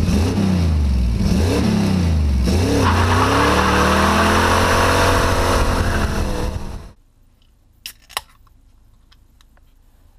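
A motor vehicle's engine revving up and down hard under a loud rushing noise. It cuts off abruptly about seven seconds in, and a couple of sharp clicks follow.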